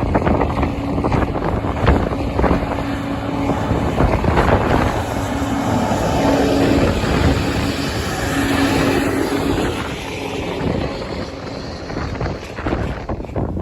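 Wind buffeting the microphone, with a steady engine hum underneath that fades in and out.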